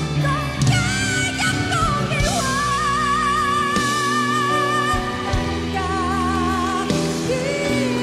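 A woman singing a pop ballad live into a microphone over instrumental backing, holding one long note with vibrato from about two to five seconds in.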